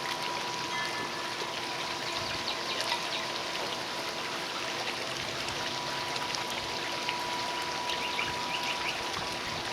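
Steady rushing background noise, like running water, with a faint steady hum under it and no distinct events.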